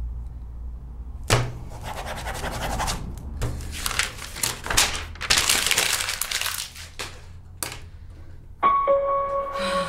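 Paper rustling and flapping as the pages of a spiral notebook are handled and turned, with a few light knocks. Near the end a steady, ringing, singing-bowl-like tone of music begins.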